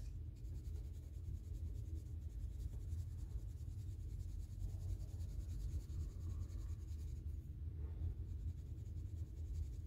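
Castle Arts soft-core colored pencil scribbling steadily on paper as it fills in a small swatch square, faint, over a low steady hum.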